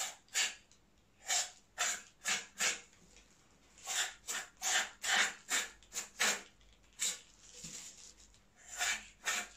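Aerosol can of gun cleaner-lubricant sprayed through its straw nozzle in a rapid series of short hissing bursts, about a dozen, with brief pauses between groups.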